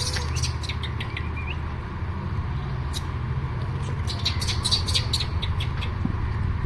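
Monkeys squeaking and chattering in short clusters of sharp clicks and chirps, one group at the start and another about four seconds in, over a steady low rumble.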